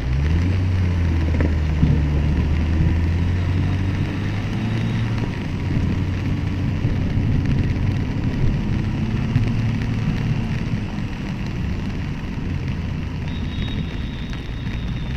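An engine running steadily with a low hum that is strongest for the first five seconds or so and then fades, over a steady hiss.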